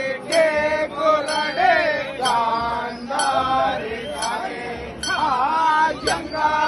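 Male voices chanting a devotional chant in a wavering, melodic line, with a sharp metallic clink about once a second.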